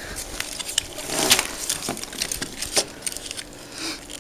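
Handling noise from a loose automotive wiring harness: irregular clicks and rustles of plastic connectors and corrugated loom, with a louder rustle about a second in.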